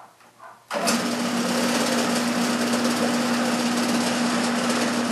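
Mill-drill motor switched on less than a second in, then running steadily with a constant hum while the bit is fed into steel tubing to drill a hole.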